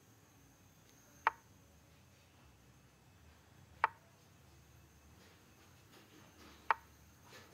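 Chess board software's move sound effect: a short sharp click played three times, about two and a half seconds apart, as each move is made on the board.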